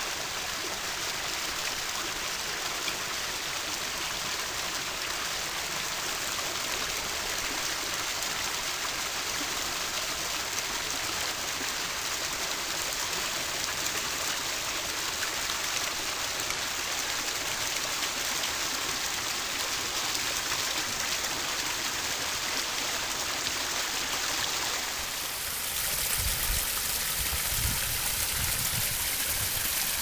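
Pond waterfall running steadily: water spilling down several small rock cascades into a pond, fed by a pump moving about 4,000 gallons an hour, a continuous splashing rush.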